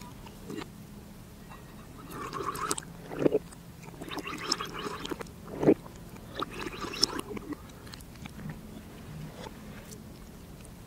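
Close-up mouth sounds of drinking juice from the beak of a bird-shaped glass: slurps, gulps and lip smacks in several short bursts, with a couple of sharp clicks.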